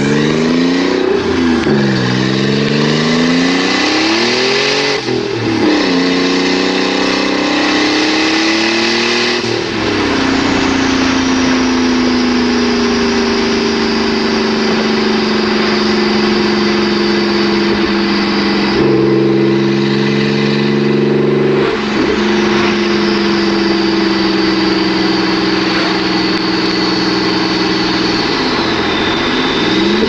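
Nissan 300ZX twin-turbo V6 (VG30DETT) on open downpipes, pulling up through the revs with the pitch falling sharply at gear changes about five and nine seconds in. It then cruises at steady revs with a thin high turbo whistle over the exhaust note, and the revs dip and climb again near the end.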